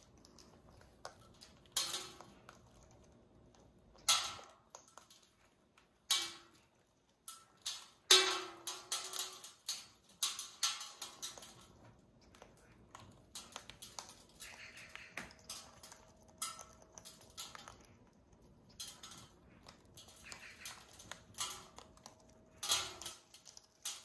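An African grey parrot and a cockatoo biting and crunching lumps of food held in their feet: irregular crisp cracks and crunches from their beaks, a few of them louder, every couple of seconds.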